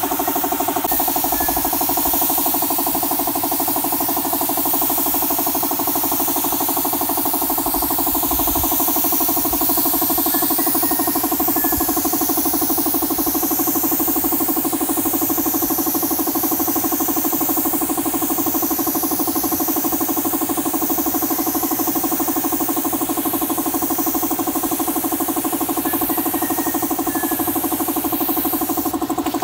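Air compressor running steadily with a constant pulsing hum, under the hiss of a siphon-feed spray gun spraying a finish coat onto wood. The hiss wavers slowly as the gun sweeps across the surface.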